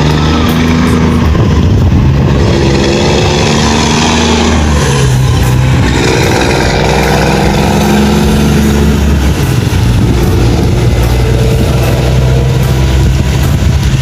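Scania truck's diesel engine running loud, its pitch rising and falling several times as it is revved.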